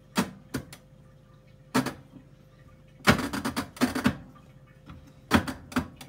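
Plastic control buttons on a dishwasher's door panel clicking as they are pressed, a few single clicks and then a quick run of them. No beep or motor answers the presses, a sign that the dishwasher's power is off.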